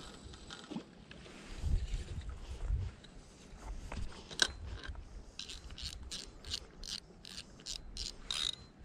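Fishing reel being cranked, its mechanism ticking evenly about four times a second through the second half. Before that there are a few low thuds of handling.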